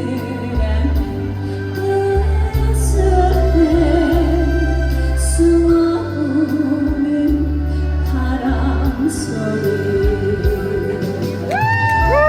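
A woman singing a song with vibrato over an amplified backing track of bass and drums. Near the end a bright, held instrumental line comes in.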